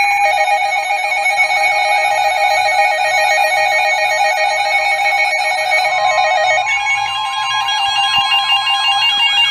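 Several weather alert radios sounding their alarms at once for a severe thunderstorm warning: overlapping electronic tones, one warbling fast, one chirping over and over, and others held steady. The mix changes about seven seconds in, when a steady beep near 1 kHz joins.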